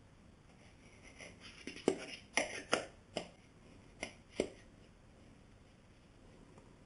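Hard plastic clicks and knocks with light rustling as a battery LED camping lantern is handled and turned in the hands: a cluster of about seven sharp clicks in the middle, then quiet room tone.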